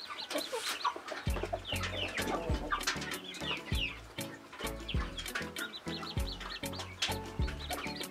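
Newly hatched chicks peeping in short falling chirps under a broody hen, with the hen clucking. Background music with a steady bass beat comes in about a second in.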